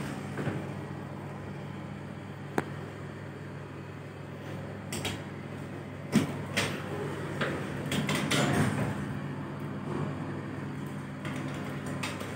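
Inside an OTIS machine-room-less traction lift car: a steady low hum, with several sharp clicks as the square car buttons are pressed, and a longer sliding rumble around eight seconds in as the car doors move.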